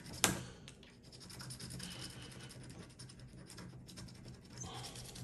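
Scratch-off lottery ticket being scratched: faint, dry rubbing and scraping of the coating. A sharp tap comes just after the start.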